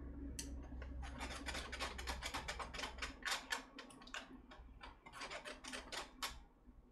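Wooden chopsticks scraping and stirring against a fine wire-mesh sieve, pushing beaten egg through it so the chalazae stay on the mesh. The rapid scratchy strokes come about five a second and stop about six seconds in.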